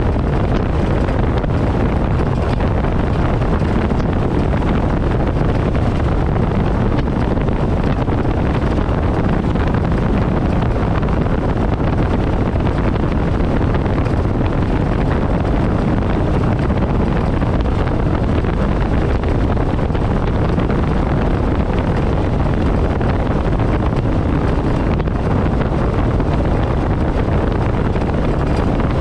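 A 1963 Evinrude Big Twin 40 hp two-stroke twin-cylinder outboard running steadily at planing speed, with the rush of the wake and wind buffeting the microphone. The sound is loud and even throughout.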